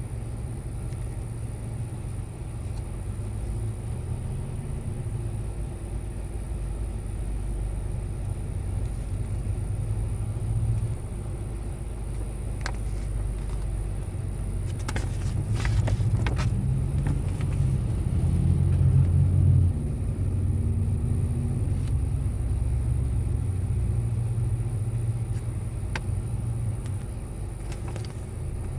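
Low, steady rumble of a car, swelling for a few seconds midway, with a few sharp clicks and knocks.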